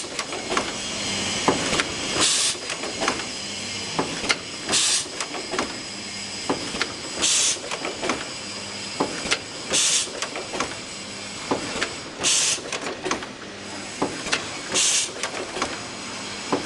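Automatic chain-making machine running its cycle: a short sharp hiss repeats about every two and a half seconds over steady clicking and knocking, with a low hum that comes and goes.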